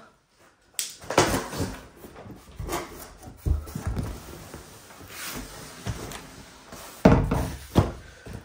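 Large cardboard monitor box being opened: cardboard scraping and rustling as the lid is worked loose and lifted off, with a couple of loud thumps near the end.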